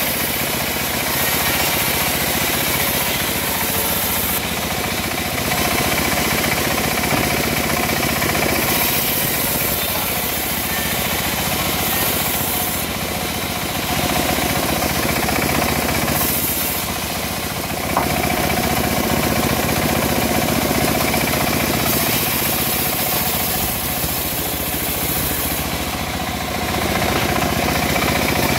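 Homemade bandsaw mill ripping teak boards: the blade runs steadily over a running engine, and the sawing noise changes every few seconds as boards are fed through and cut. A single sharp click about eighteen seconds in.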